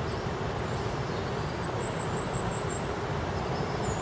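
Steady rush of a swollen river in flood, fast brown water running over the bank and a submerged path.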